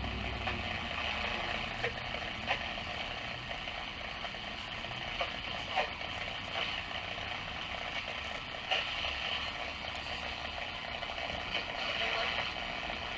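Pilot tube radio's speaker giving steady static hiss between stations while being tuned, with a few small clicks.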